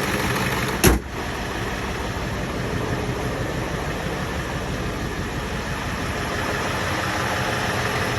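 Ford 7.3 Powerstroke V8 turbo-diesel idling steadily at operating temperature, a nice solid idle after the injectors were shimmed. A single sharp knock sounds just under a second in.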